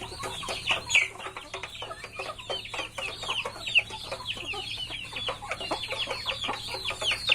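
A flock of chickens calling continuously, with many short, high, falling calls overlapping one another.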